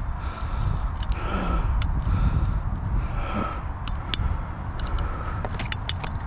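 Wind noise rumbling on the microphone, with scattered short metallic clicks from long-nose pliers working a hook out of a trout's mouth.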